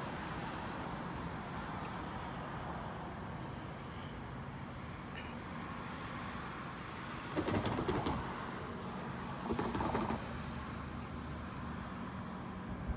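Steady outdoor background noise with a faint low hum, broken by two short, louder rushes of noise in the second half.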